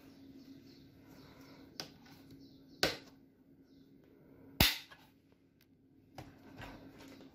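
Plastic parts of an under-sink organizer rack snapping into place by hand: four sharp clicks, the loudest about four and a half seconds in.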